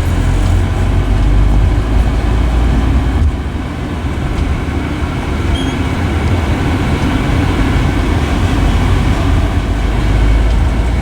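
Loud, steady low rumble of a moving vehicle, road and traffic noise with no clear pitch.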